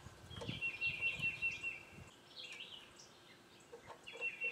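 A songbird singing a rapid trill of the same short high note, about a second and a half long, then starting again near the end.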